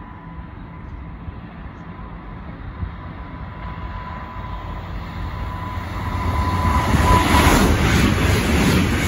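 Electric passenger train approaching and passing through the station at speed. A thin steady whine grows louder as it nears, then about seven seconds in the loud rush of the passing train takes over, with a rhythmic clatter of wheels.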